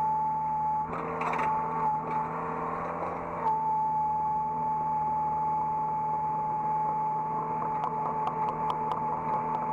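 Hydraulic excavator running, heard from inside the operator's cab: a steady engine hum with a steady high whine over it, and a run of light clicks near the end.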